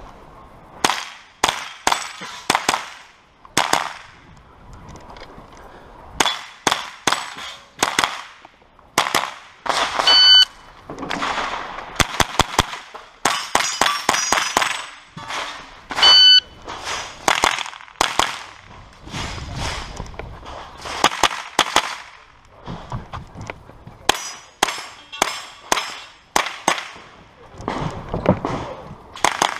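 Rapid strings of .22 LR shots from a Sig Sauer 522 SWAT semi-automatic carbine, several shots a second in bursts with short pauses between. Steel targets ring sharply on hits, most clearly twice in the middle of the stage.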